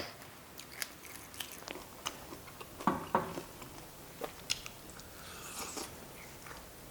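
A person chewing and biting food close to the microphone: scattered crunchy clicks and wet mouth sounds, with a couple of louder bites about three seconds in.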